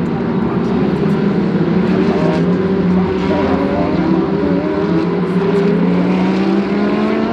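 GT3 race car engines running hard on track, several engine notes overlapping and climbing in pitch as the cars accelerate.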